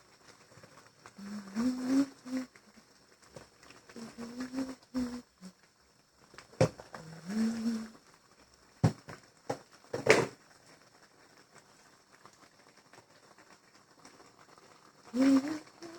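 A person's voice in short, separate phrases with rising pitch, broken by a few sharp knocks. The loudest knock comes about ten seconds in.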